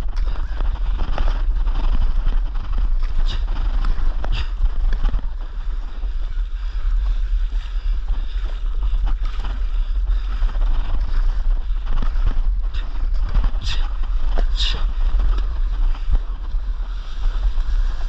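Wind rumbling on the microphone over a steady rush of water along a stand-up paddleboard gliding on the sea, with a few sharp splashes, in two pairs about a second apart.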